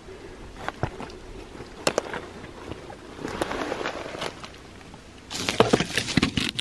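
Irregular clicks, scuffs and rustling of someone moving over rock and reaching down into a rock crevice, with a denser run of clicks and scrapes near the end.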